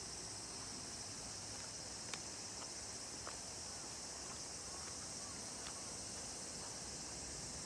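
Steady outdoor riverside ambience: an even high hiss, with a few faint short chirps and ticks from about two seconds in.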